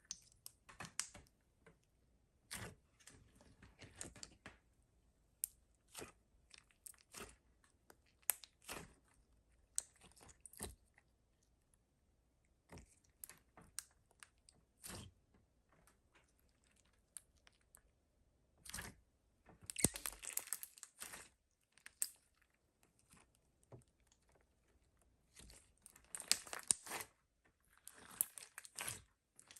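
Butter slime being mixed and squished by hand: irregular short crackles and pops, with thicker runs of crackling about two-thirds of the way through and again near the end.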